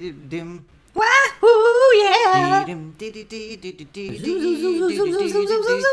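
A voice singing a wordless melody with a wavering, gliding pitch. It starts about a second in, drops away briefly around three seconds, then comes back.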